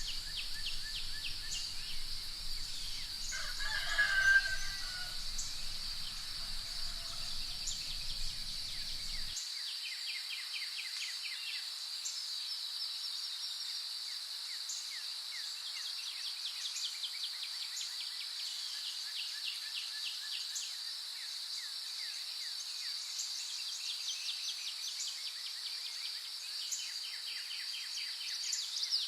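Morning countryside ambience: a steady high insect drone with small birds chirping throughout, and a rooster crowing once about four seconds in. A low rumble underneath stops about nine seconds in.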